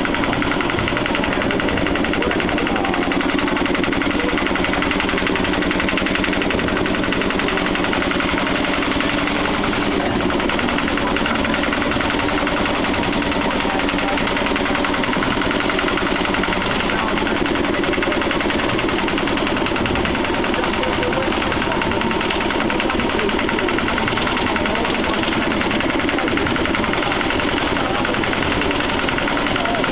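Small Lister autotruck's diesel engine running steadily with a fast, even beat, heard close up from on board as the little 2 ft gauge locomotive travels along the line.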